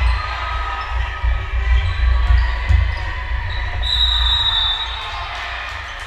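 Basketball bouncing on a gym floor, with the scattered voices of the crowd in the hall. A short high tone sounds about four seconds in.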